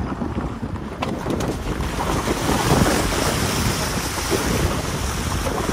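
Car driving through a shallow river crossing: water splashing and rushing around the wheels, steady and swelling a little midway.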